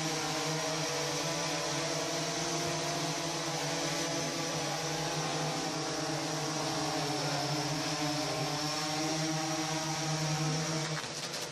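Multirotor drone's motors and propellers buzzing steadily, a stack of even tones with a high whine, the pitch wavering slightly; it cuts off abruptly near the end.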